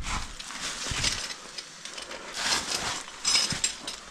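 Irregular scraping and scuffing of a caver climbing down a loose rocky crevice on a rope, with several louder scrapes about a second in and again near the end.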